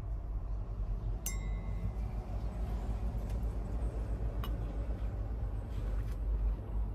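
Steady low rumble with a single sharp glassy clink that rings briefly about a second in, followed by a few lighter ticks.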